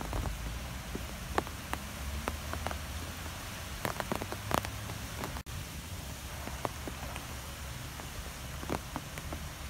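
Steady rain falling, with scattered sharp drop ticks over an even hiss and a low rumble underneath. The sound cuts out for an instant about five and a half seconds in.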